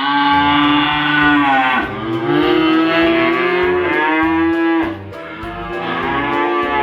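Cow mooing: three long, loud moos in a row, over background music with a steady beat.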